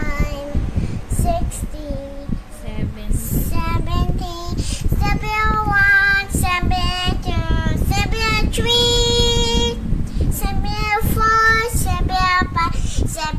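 A young girl singing, holding her notes, with one long sustained note about nine seconds in.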